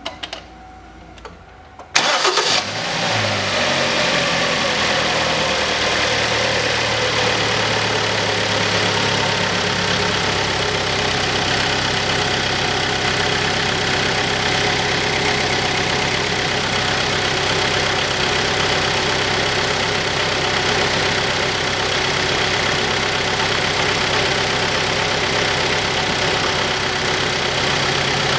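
The 2.0-litre engine of a 2012 Kia Sportage cranks briefly and starts about two seconds in, then idles steadily, its idle easing down slightly over the following several seconds. It is being run so that the automatic transmission pumps its old fluid out through a disconnected cooler hose.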